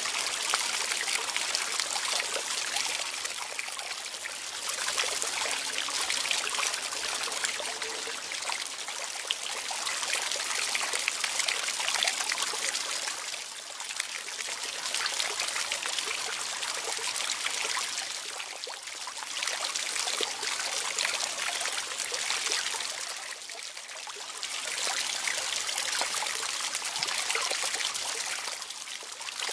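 Water trickling and splashing steadily, swelling and easing every few seconds.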